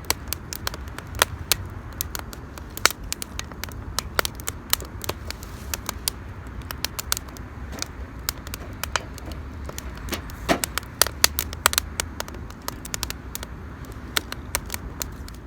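Wood campfire crackling, with sharp irregular pops several times a second over a low steady rumble, and a brief hissing squeal from the burning wood about ten seconds in.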